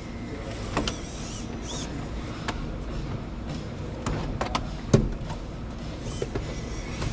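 1/18-scale Traxxas TRX-4M RC rock crawlers whirring as they climb over rocks, with scattered clicks and one sharper knock about five seconds in as the trucks bump against the rock.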